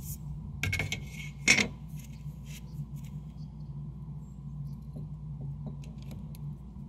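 An aluminium straightedge saw guide being set down on a sheet of plywood and shifted into line: a few sharp clacks in the first second and a half, the loudest about a second and a half in, then light scattered taps and clicks of metal on wood as it is positioned.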